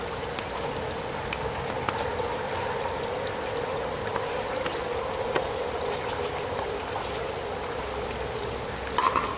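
Steady rain and running water on a wet outdoor court, with scattered sharp ticks of drops. A brief louder sound comes near the end.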